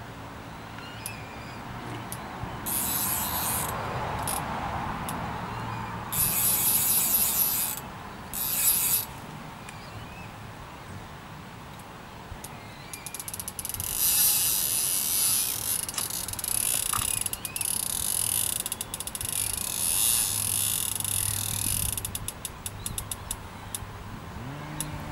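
Fishing reel ratcheting in bursts of rapid clicks: several short bursts, then a long run of about eight seconds.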